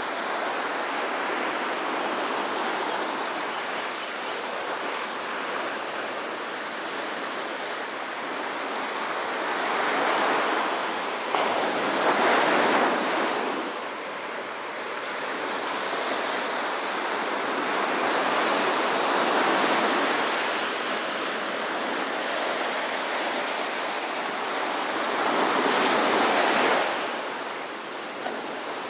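Small Pacific waves breaking and washing up a sandy beach: a steady surf hiss that swells each time a wave breaks and runs up the sand, about four times, with one sharper break near the middle.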